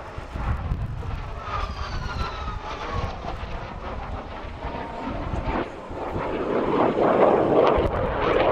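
Saab JAS 39 Gripen fighter's single jet engine during a low display pass: a high whine falling in pitch as the jet goes by, then a louder, broad jet noise building over the last couple of seconds.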